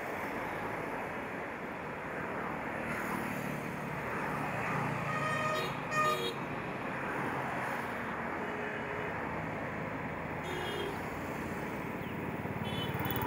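Steady hum of road traffic, with a brief horn toot about six seconds in.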